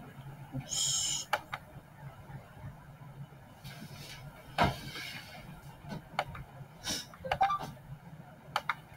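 Faint room noise with a steady low hum, a brief hiss about a second in, and a handful of scattered clicks and knocks, the loudest about halfway through.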